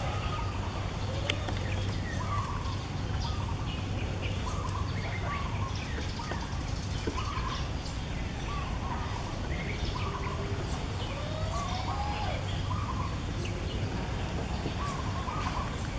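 A string of short animal calls repeating about once or twice a second, with a longer rising call about twelve seconds in, over scattered bird chirps and a steady low hum.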